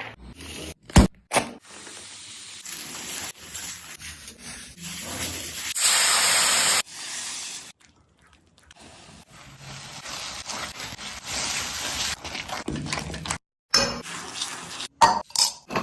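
Kitchen cooking sounds: utensils clinking and scraping against a pan, with a few sharp clicks about a second in and a loud steady hiss lasting about a second near the middle. The sounds stop and start abruptly several times.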